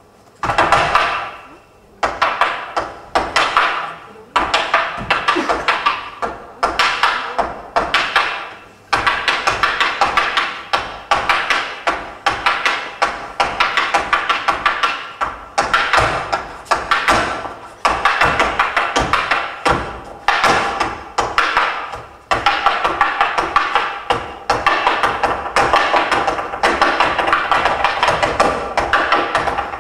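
Boleadoras whirled on their cords and struck rhythmically against a wooden stage floor: rapid sharp clicking strikes in phrases of a second or two, each starting loud and tailing off, with brief pauses between phrases.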